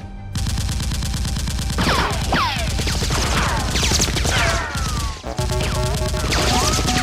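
Rapid automatic gunfire sound effects, starting abruptly and running as a dense fusillade, with falling whistling whines and background music underneath.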